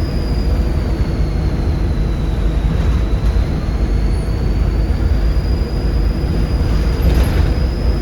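Volvo B7RLE bus's 7.3-litre Volvo D7C diesel engine running with a heavy low rumble, over which the turbocharger whistles high, the whistle falling in pitch over the first few seconds, then rising again and holding.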